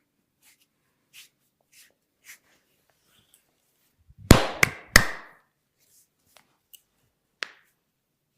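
Hands striking during a head and neck massage: a few light taps, then three loud, sharp smacks in quick succession a little past halfway, followed by a few more light clicks.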